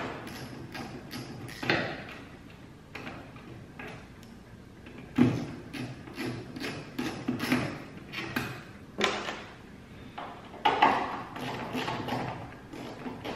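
Irregular clicks, scrapes and knocks of a screwdriver backing out the screws of a pickup's plastic tail light housing and hands working the housing loose, with a few sharper knocks about two, five, nine and eleven seconds in.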